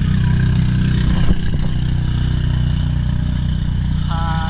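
Motorboat engine running steadily at speed, a low even drone. Near the end a person's voice cries out with a long held call.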